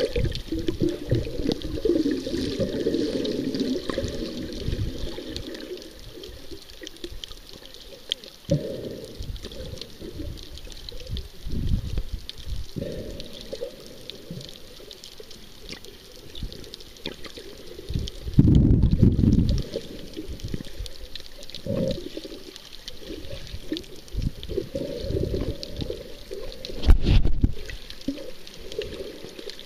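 Muffled water gurgling and sloshing picked up underwater, mostly a low rumble, with a louder low surge a little past halfway and another near the end.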